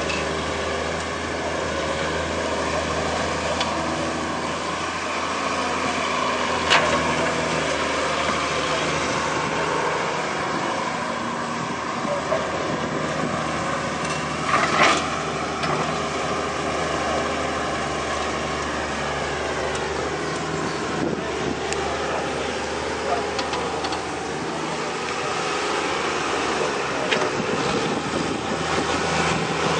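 Diesel excavator engine running steadily under working load, with a couple of sharp knocks as it digs and shifts rubble.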